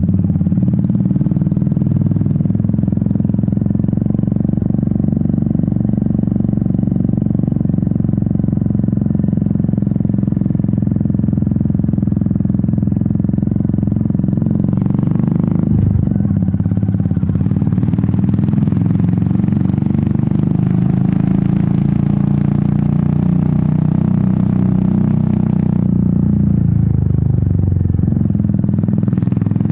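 Royal Enfield Meteor 350's single-cylinder exhaust running steadily as the motorcycle rides along. About halfway there is a brief break, then the engine note climbs with more wind rush, and it eases off again near the end.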